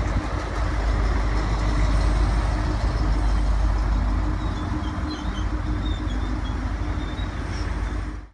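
V/Line Sprinter diesel railcar pulling out along a station platform: a steady low engine drone with the rumble of wheels on rail, cutting off abruptly at the end.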